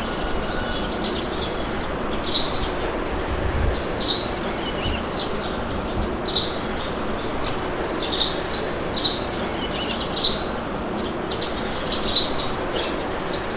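Steady wind blowing with birds chirping over it, short high calls coming about once a second.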